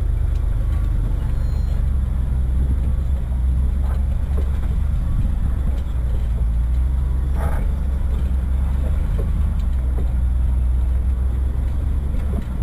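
A 4x4's engine running steadily at low speed as it crawls over rock, heard as a deep, even rumble, with a few faint knocks from the vehicle on the rough ground.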